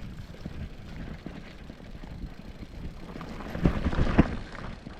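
Mountain bike riding down a rocky trail: a steady low rumble of tyres and rattle, with two sharp knocks a little past halfway, about half a second apart, as the bike hits rocks.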